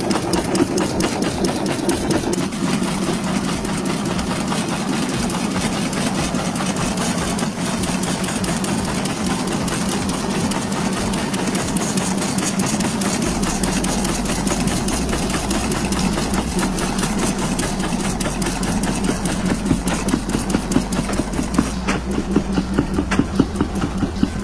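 Automatic agarbatti (incense stick) making machine running, a steady motor drone with a fast, even clatter from its stick-feeding and paste-extruding mechanism. A deeper low hum joins about halfway through.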